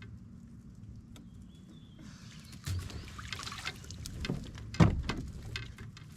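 Water splashing and sloshing beside a kayak, building up about two seconds in, with a sharp loud knock on the hull near the end.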